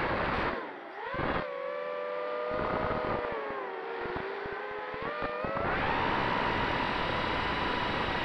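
Brushless motors of an FPV racing quad (T-Motor F60 2100KV spinning Gemfan 5x5x3 props) whining, the pitch sliding up and down with the throttle, with gusts of wind buffeting the onboard microphone. About six seconds in the whine jumps higher and holds steady as the quad climbs.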